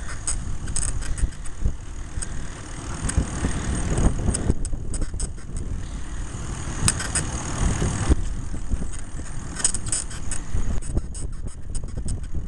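Bicycle squeaking in short repeated bursts as it is ridden, the squeak coming from the saddle, over a steady low rumble of wind and road. The rumble swells for a few seconds in the middle.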